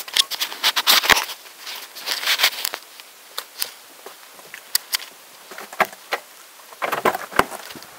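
Handling noise from a small clip-on camera: fingers rubbing and tapping against its body and microphone, thick in the first three seconds, then scattered sharp clicks, with a quick run of knocks near the end.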